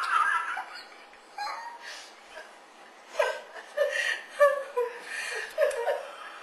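A woman and an elderly man laughing together. The laughter is loud at first and dies down within about a second, then a fresh bout of short, falling chuckles starts about three seconds in.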